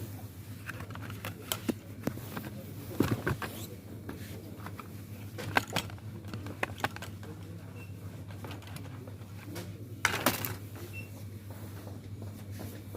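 Scattered light clicks and knocks over a steady low hum, the loudest about three seconds in and about ten seconds in.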